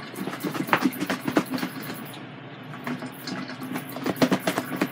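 Covered plastic breader bowl being shaken by hand, with catfish pieces and dry fish-fry breading knocking and rattling inside. The shaking comes in two spells, one starting about half a second in and one near the end, with a quieter pause between.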